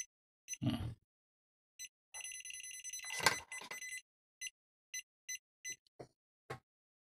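Pen-type multimeter's non-contact voltage detector beeping its alert as it is moved along insulation-tester leads carrying 1,000 volts DC. Short high beeps come in scattered ones and twos, run almost without a break for about two seconds in the middle, then go back to single beeps. A dull thump about half a second in and a sharp knock about three seconds in come from the tester being handled.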